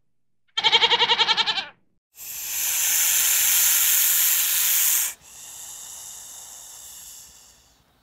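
A goat bleats once, a quick wavering call of about a second. Then a snake hisses loudly for about three seconds, followed by a softer, longer hiss.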